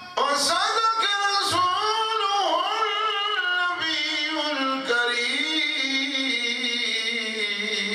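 One voice singing a slow, ornamented devotional line, its pitch wavering and sliding on long held notes. The line comes in suddenly and drifts lower in pitch as it goes.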